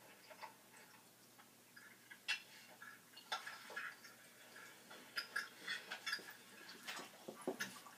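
Faint, irregular light clicks and snuffles from a border collie and a Yorkshire terrier play-fighting, mouthing at each other, with more of them in the second half.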